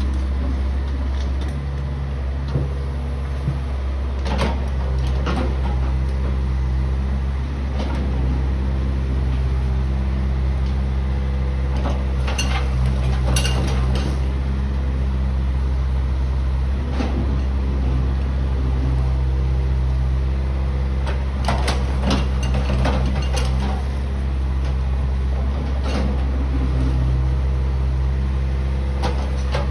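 Backhoe's diesel engine running steadily. Several times over it come short bouts of scraping and clattering as the bucket rakes up crushed stone.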